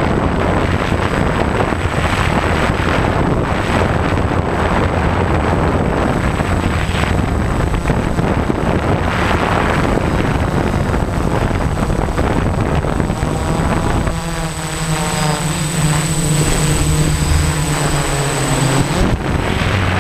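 DJI F550 hexacopter's six electric motors and propellers running in flight, heard from the onboard camera: a steady hum under heavy wind noise on the microphone. About fourteen seconds in the wind noise eases and the motors' steady humming tones stand out more clearly.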